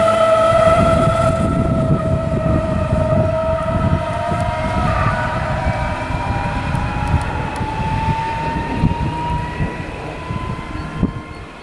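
DB Class 423 S-Bahn electric multiple unit pulling away. Its traction motors give a whine that rises in pitch as it accelerates, over the rumble of wheels on track, and the sound fades as it draws away.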